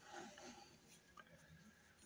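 Near silence, with a few faint handling noises from hands and a small metal tool in roughly the first half second.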